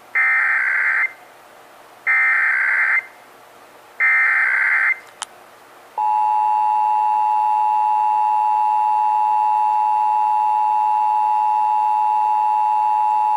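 Emergency Alert System required monthly test: three one-second squawks of SAME header data, each about a second apart. A short click follows, then, about six seconds in, the steady two-tone EAS attention signal starts and holds.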